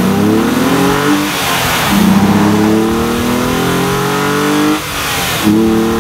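Hyundai Genesis Coupe 3.8 GT's 3.8-litre V6 accelerating hard through its dual-outlet exhaust, the engine note rising steadily with the revs. Twice it breaks off and comes back lower, between one and two seconds in and again about five seconds in, as the six-speed manual is upshifted.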